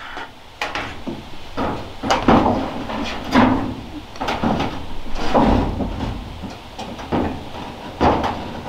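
Irregular knocks and clanks on a corrugated metal roof as it is walked and knelt on and a sheet-metal flashing piece is handled. There are about a dozen thumps, several with a short metallic ring.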